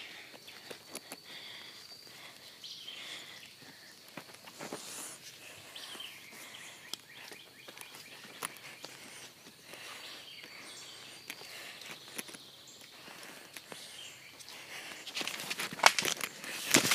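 Footsteps on a woodland floor, crackling over dry leaves and twigs in scattered small snaps. Near the end comes a louder, dense burst of crackling as leafy branches brush against the phone.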